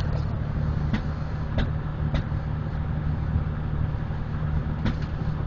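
1997 Dodge Ram 1500's 3.9-litre V6 under full throttle, its low engine note holding steady as the truck pulls up a slight grade, with a few sharp ticks over it. The engine is misfiring, with stored misfire codes for cylinders 2 and 3.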